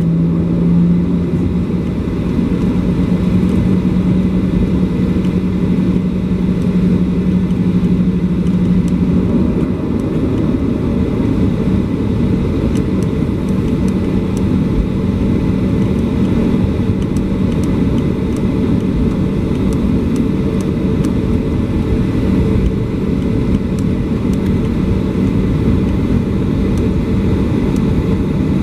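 Cabin noise of a taxiing Boeing 737-800: the CFM56 engines running at taxi power, heard inside the cabin as a steady rumble with a low hum that rises slightly in pitch about a second in.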